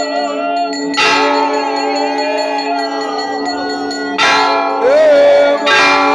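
Temple bells ringing for aarti: a steady, many-toned ringing, with three loud strikes, about a second in, past the middle and near the end, each leaving a ringing tail.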